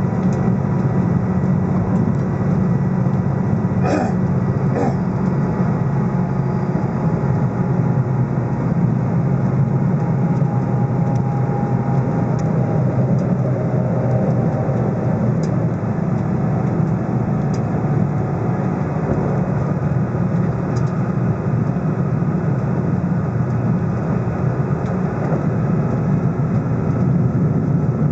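Steady low rumble of the Hida express diesel train running along the line, heard from inside the carriage. Two short clicks come about four seconds in.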